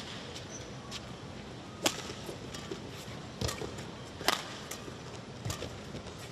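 Badminton rackets hitting a shuttlecock back and forth in a rally: sharp, crisp strikes every one to two seconds over the low hum of a sports hall.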